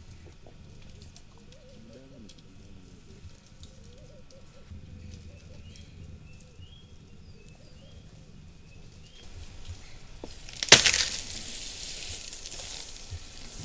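Elephants feeding in dry bush. Near the end, a sudden loud crack of a branch breaking, followed by about two seconds of rustling and thrashing leaves. Faint bird calls before it.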